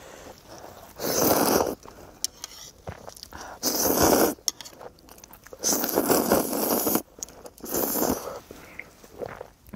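A person slurping ramen noodles in tteokbokki sauce: four loud slurps, each about a second long, with chewing and small wet clicks between them.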